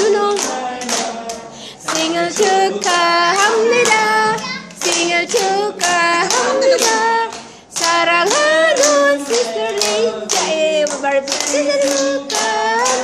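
A small group singing a birthday song together while clapping their hands in a steady beat, about two or three claps a second, with short breaks between the sung lines.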